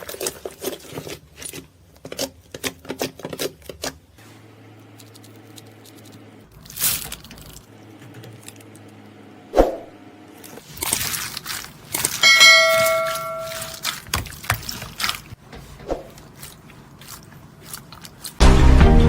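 Slime being handled, with many sticky clicks and crackles. A brief bell-like ring sounds about twelve seconds in, and music starts near the end.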